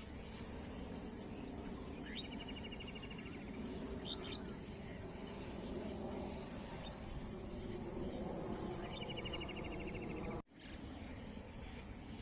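Evening nature ambience: a steady high insect trill, like crickets, over a low background rumble, with a bird's short rapid trill about two seconds in and again about nine seconds in, and a few faint chirps between. The whole sound drops out for an instant about ten and a half seconds in.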